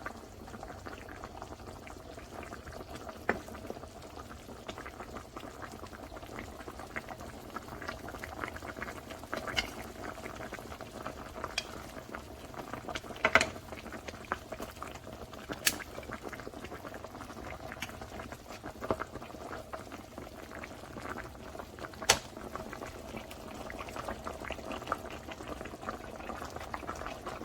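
Electric skillet of chicken, peppers and black beans simmering: steady bubbling crackle with many small pops and a few louder sharp pops.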